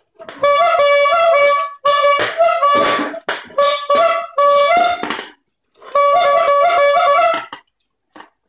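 Bulb squeeze horn honking over and over as a dog bites and presses its rubber bulb. Each honk is a reedy note wavering between two close pitches. The honks run for about five seconds, break off briefly, then one long honk follows.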